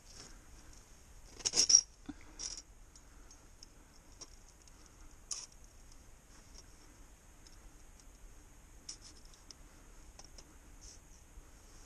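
Metal clicks and scrapes of a 330 Conibear body-grip trap being handled, its jaws and springs clinking. There is a louder clatter about a second and a half in, and scattered light ticks after it.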